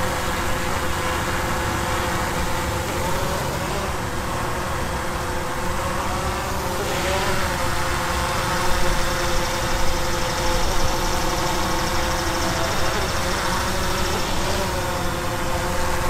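DJI Mavic 2 Pro quadcopter flying low, its propellers making a steady buzzing hum whose pitch wavers slightly a few times as it changes speed and direction.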